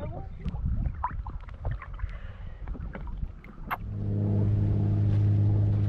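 Small splashes and knocks of water, then about four seconds in a steady low drone comes in: the Mainship 390 trawler's engine running with the boat underway.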